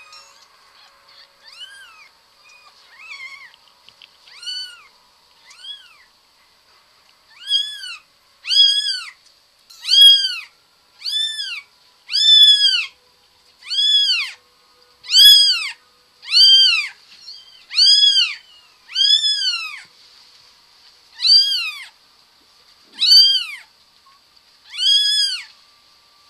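A kitten mewing over and over in high, thin calls that each rise and fall, about one a second. They are faint at first and turn loud about seven seconds in.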